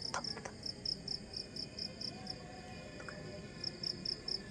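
Night insects chirping in a rapid, even pulse, about five chirps a second, pausing for about a second in the middle, with a brief rustle at the start.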